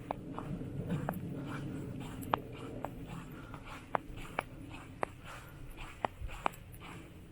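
Irregular sharp clicks and pops, about one or two a second, over a soft low hiss that fades after the first couple of seconds.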